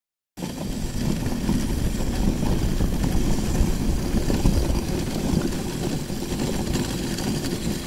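Dog sled running fast over a packed snow trail behind a sled-dog team: a steady, rough low rumble of the runners on the snow, starting abruptly just after the beginning.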